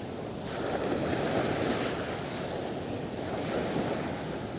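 Sea waves washing against a breakwater, with gusty wind buffeting the microphone; the wash swells louder about half a second in.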